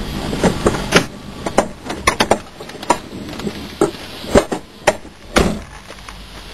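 Clicks and knocks of people climbing out of a car: door latches, doors and bodies bumping the interior, in a string of short sharp sounds. A steady rumble underneath stops about a second in.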